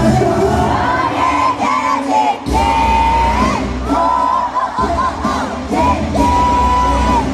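Live pop song played loud over an arena sound system, with a singer holding long notes over heavy bass and the crowd yelling along.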